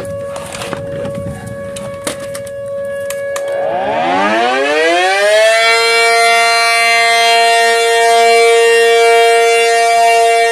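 A warning siren winds up about three and a half seconds in, its pitch rising over about two seconds and then holding a steady wail to the end. Before it there is a steady tone with a few sharp clicks.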